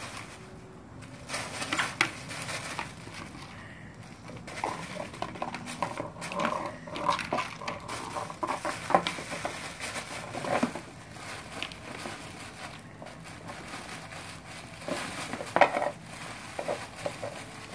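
Puppies playing with plastic frisbees and toys on concrete: irregular clatter, knocks and scuffling, the loudest knocks about two, nine and fifteen seconds in.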